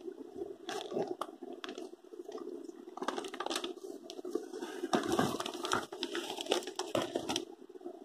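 Clear plastic zippered packaging bag crinkling and rustling as a fleece baby blanket is handled and pulled out of it, with irregular crackles that are busiest from about three to seven and a half seconds in.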